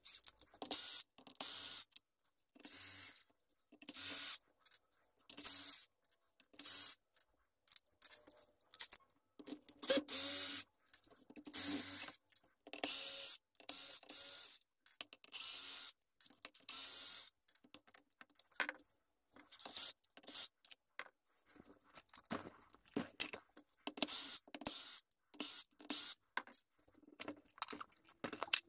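Power screwdriver running in short, repeated bursts of about half a second to a second each, backing screws out of an RC truck's plastic chassis.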